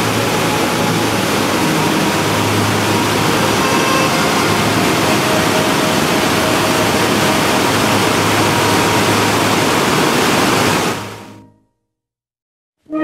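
White water rushing down a dam spillway in a loud, steady wash of noise that fades out about eleven seconds in.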